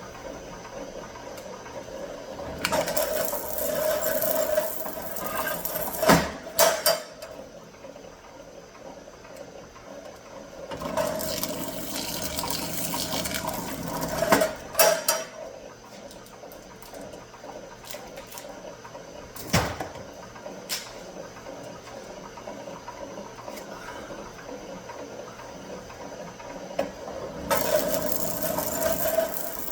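Insulated copper wire being stripped: three rasping passes of a few seconds each as the insulation is cut and pulled off, each followed by a few sharp clacks of the wire.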